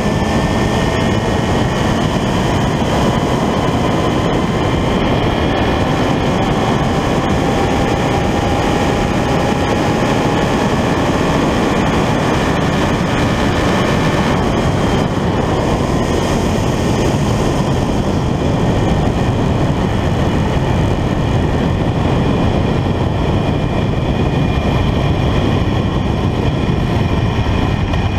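Suzuki GSX-S1000's inline-four engine running at high road speed under heavy wind rush on the microphone. The engine note climbs slowly at first, then drops back about halfway through as the bike slows down.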